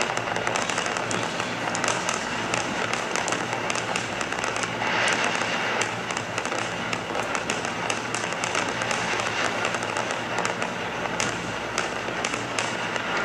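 Fireworks going off continuously, a dense run of crackling pops and small bangs close together.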